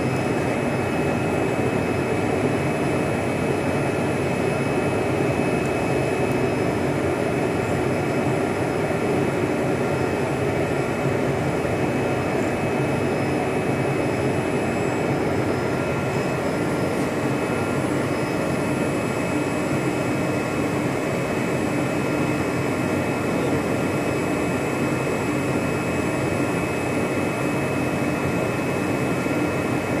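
CNC vibrating-knife cutting machine running as its oscillating blade cuts curves into drywall: a steady, even machine noise with a constant faint high whine.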